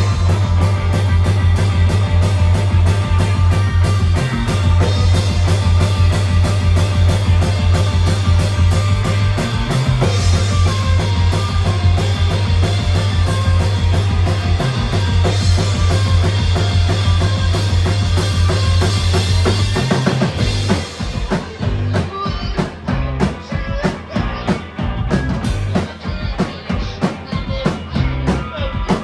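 Live rock band playing an instrumental stretch on electric guitars, bass guitar and drum kit, loud and dense. About two-thirds of the way through, the full sound breaks into choppier, stop-start hits.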